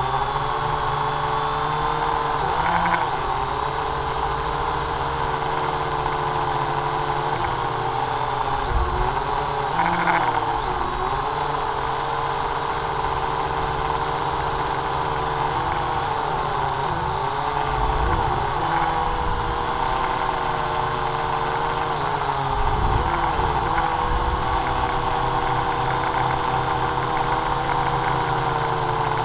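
Electric motors and propellers of a camera drone, heard from the aircraft itself: a steady whine of several close pitches that dips and wavers every few seconds as the throttle changes.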